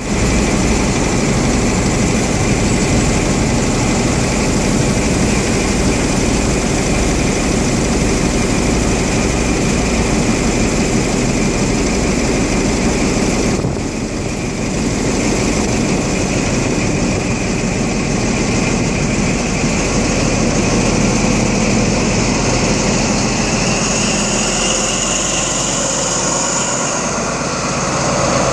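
Class 43 HST power car's Paxman VP185 diesel engine running loud at close range, with a high turbocharger whine building over the last several seconds as it powers up and the train pulls away.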